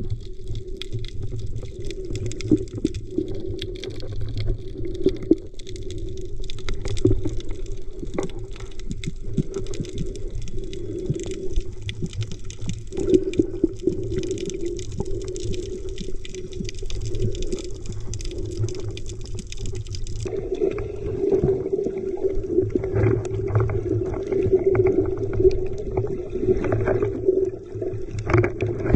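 Muffled underwater sound recorded by a camera held under the sea: a steady low wash of water against the camera housing, with scattered clicks and knocks. The sound shifts abruptly about twenty seconds in.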